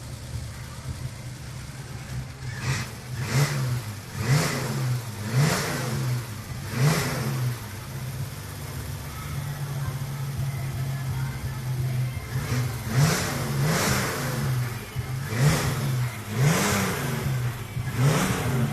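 Chevrolet Opala's straight-six engine idling with a steady rumble, blipped sharply about five times in quick succession, then left to idle for a few seconds, then blipped about five more times near the end.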